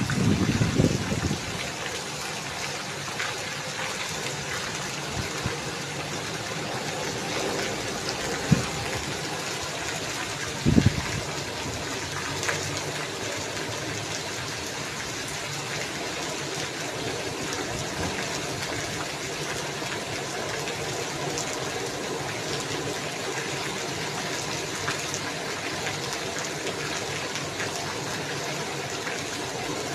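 Steady heavy rain falling, with water gushing as it runs off. A low rumble in the first second or so, and two brief low thumps later on.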